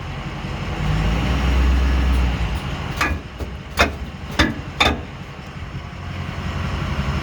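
Ford F350's 6.0 diesel V8 pulls the truck off, its rumble swelling about a second in. Then come four sharp pops in under two seconds from the Demco Recon fifth wheel hitch on its gooseball mount, a loud popping under load that the owner takes as a sign something in the hitch is broken.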